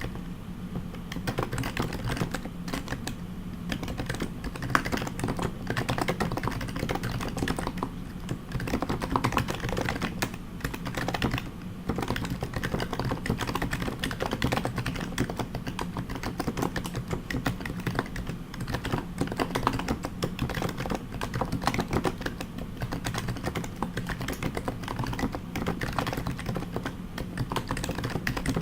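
Fast continuous typing on a Topre keyboard (HHKB JP with heavy BKE domes, silent purple sliders and Hi-Pro keycaps): a dense, steady stream of soft keystrokes.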